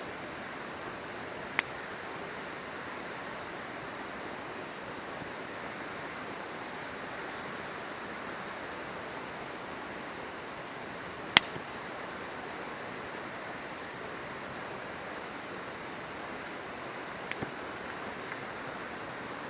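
Steady rush of a flowing river, with a few sharp pops from burning firewood in a campfire, the loudest about eleven seconds in.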